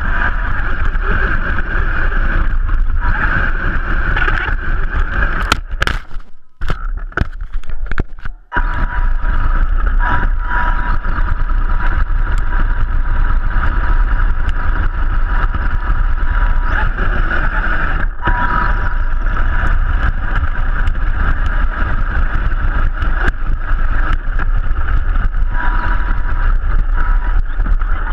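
Vaterra Twin Hammers RC rock racer driving over dirt, heard from a camera mounted on the truck: a steady whine from its electric motor and drivetrain over a heavy rumble from the tyres and chassis. The sound drops away twice, about six and eight seconds in, with a few sharp knocks.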